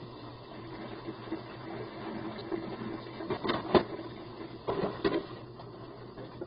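A flex-shaft drain-cleaning machine running with a steady low hum while working a hardened grease blockage. Sharp knocks and rattles come a little over three seconds in, the loudest just before four seconds, and again around five seconds.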